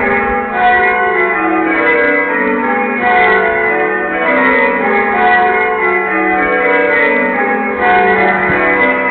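Church bells rung in changes: a continuous run of overlapping bell strikes, each bell's tone ringing on under the next.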